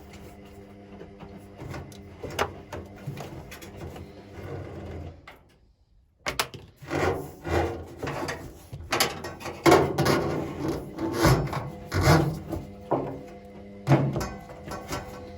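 Repeated knocks, clatter and scraping, as of hard parts being handled and worked by hand, over a steady low hum. The sound breaks off briefly about six seconds in, then the knocking comes back busier and louder.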